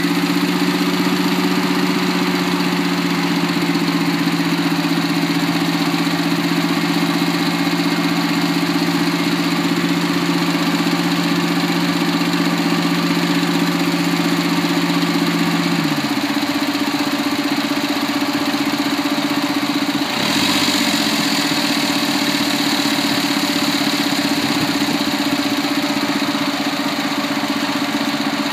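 Suzuki Alto Works (HB21S) three-cylinder turbo engine idling with a steady droning hum from its open-type air cleaner, an abnormal noise that the owner traces to the VSV (vacuum switching valve). About 16 s in the lower tone of the drone stops, and about 20 s in a short click is followed by a hissier sound.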